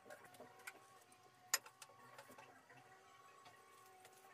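Quiet scattered clicks and light taps over a faint steady hum, with one sharp click about a second and a half in.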